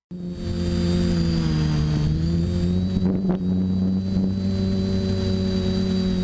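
TBS Discovery quadcopter's four DJI brushless motors and Graupner 10-inch E-props running in flight, heard from on board the frame: a steady droning hum with a thin high whine above it. The pitch sags slightly about two seconds in and recovers as the throttle changes.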